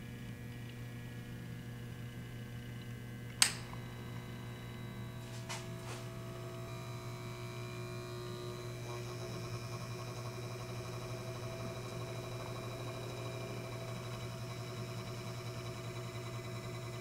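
A laboratory mixer's electric motor, run from a knob speed controller, switches on with a sharp click about three seconds in. After a couple of lighter clicks its whine rises in pitch as it speeds up and then holds steady, driving the stirring impeller in a steel pot. A steady low hum runs underneath throughout.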